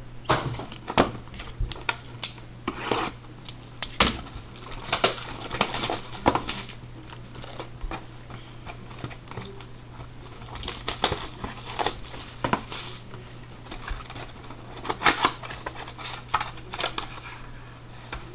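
Cardboard hobby box and foil card packs being handled and opened by hand: an irregular run of sharp clicks and taps, with some crinkling and tearing of wrapper, over a steady low hum.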